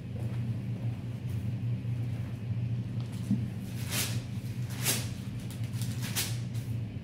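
A steady low hum, with three brief papery rustles about four, five and six seconds in: Bible pages being turned to find a passage.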